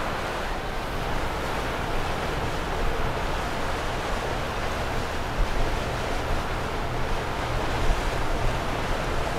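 Wind buffeting the microphone over a steady wash of water, with a low engine rumble from boats passing on the river.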